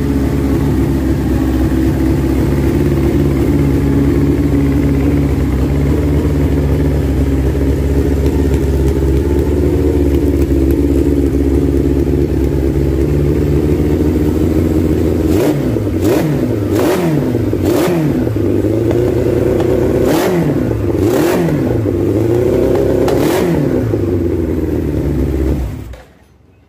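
Motorcycle engine of a Honda Megapro Primus converted to four cylinders, idling steadily for about fifteen seconds, then revved in a string of about seven quick throttle blips, each dropping back in pitch. The sound cuts off sharply near the end.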